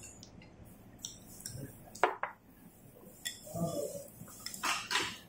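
Chopsticks and spoons clinking against white ceramic bowls and plates, scattered sharp clinks with the loudest about two seconds in and a few more near the end.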